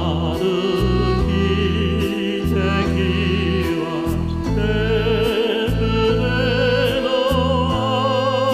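Music: a singer in operatic style with wide vibrato, holding long notes over a sustained low accompaniment.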